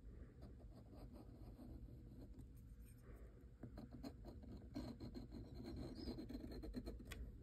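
Kakimori brass dip nib scratching faintly across paper as long straight lines are drawn, with stroke after stroke growing louder in the second half.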